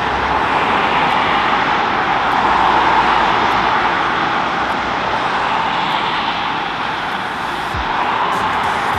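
Steady rush of highway traffic, car and bus tyres hissing on wet pavement, swelling slightly about three seconds in.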